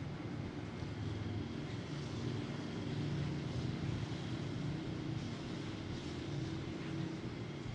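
Steady rain noise, an even hiss, over a low steady drone.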